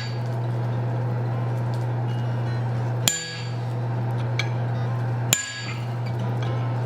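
Hammer driving a bird's-eye punch into hot steel on an anvil to sink a forged face's eyes: two sharp, ringing blows about two seconds apart, over a steady low hum.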